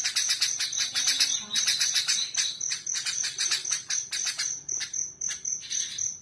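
Sooty-headed bulbul (kutilang) singing in fighting mode: a song loaded with Eurasian tree sparrow chatter, delivered as fast runs of sharp chirps, with a steady high-pitched tone running underneath.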